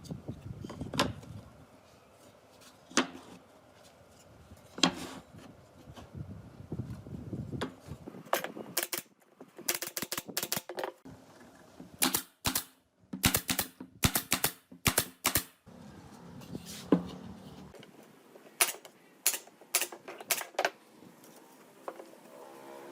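Irregular sharp taps and knocks, scattered at first and then coming in quick runs of two to four, as in hand work on wood.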